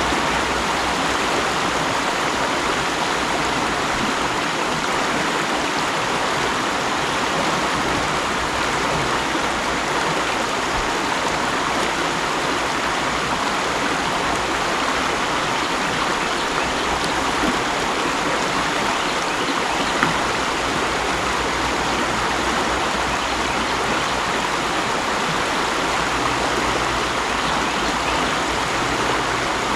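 Mountain stream water rushing and babbling over rocks, a steady, even flow.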